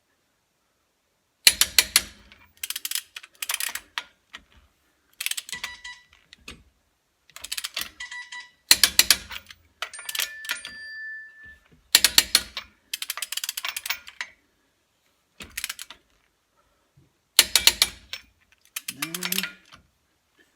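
Click-type torque wrench ratcheting in short bursts of rapid clicks, with pauses between them, as the nuts holding a wheel adapter to the front hub are run down and torqued to 90 foot-pounds.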